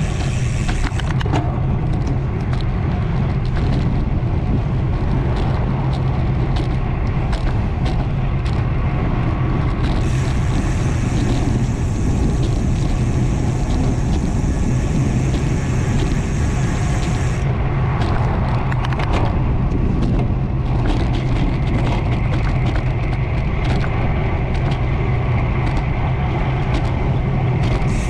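Road bicycle riding along a paved road, heard from a handlebar-mounted action camera: a steady low rumble of wind and tyre noise, with scattered small clicks and rattles and a higher hiss for several seconds midway.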